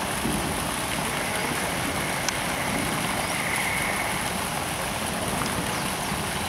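Steady rushing noise of wind and water, with one faint click a little over two seconds in.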